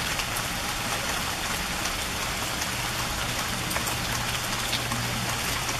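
Steady rain falling, with separate drops tapping now and then; a faint low hum comes in about halfway through.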